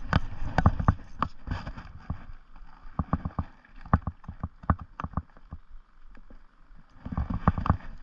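Irregular knocks, taps and clatter of rod and gear being handled in a small fishing boat, during a fight with a hooked fish. The knocks come unevenly, several close together about a second in and again near the end.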